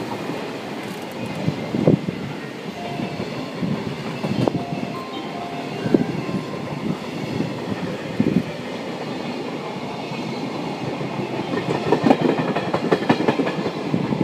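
Container freight train wagons rolling past close by, the wheels clattering over the rail joints with sharp knocks now and then. The clatter grows denser near the end as the last wagons pass.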